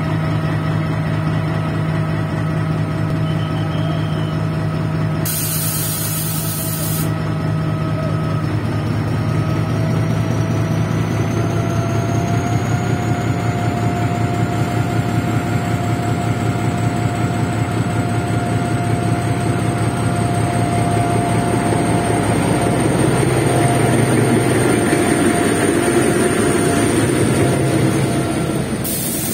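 Narrow-gauge ZDM diesel locomotive's engine running with a steady drone and a high whine that slowly rises in pitch as the train gets under way. There is a short hiss about five seconds in, and toward the end the coaches roll past with a growing rhythmic wheel clatter.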